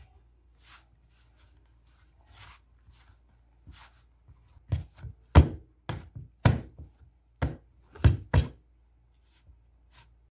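Bread dough kneaded by hand in a plastic bowl: soft scraping and rustling at first, then from about halfway in a series of about seven dull thumps as the dough is pushed and pressed against the bowl.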